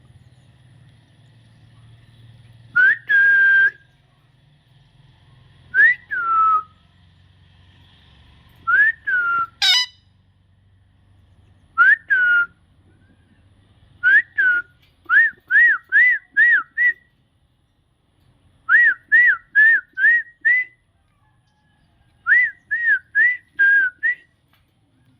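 A parrot whistling short up-and-down notes, single ones a few seconds apart at first, then quick runs of four to six notes in a row.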